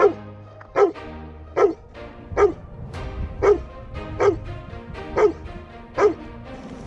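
A search dog barking steadily, eight sharp barks a little under a second apart. This is a rubble-search dog's bark indication, standing at the spot where it has found a hidden person.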